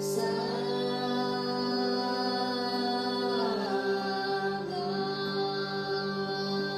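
Slow meditative mantra music: a sustained drone of held tones with a voice chanting long notes over it, one note sliding down about halfway through.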